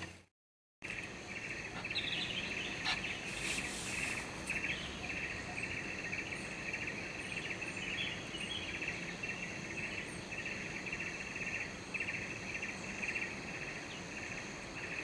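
Steady shrill chorus of insects buzzing in quick, uneven pulses, with a few faint high bird chirps over it. The sound drops out for about half a second right at the start.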